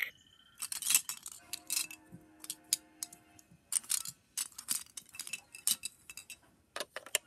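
Hard plastic toys being handled, giving a scatter of light clicks and clinks, with a faint steady electronic tone from a toy for about two seconds near the start.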